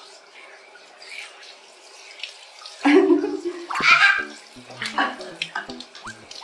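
Water from a handheld shower head spraying onto a wet cat and a tiled floor, a faint steady hiss. About three seconds in, louder background music with stepping notes comes in over the water.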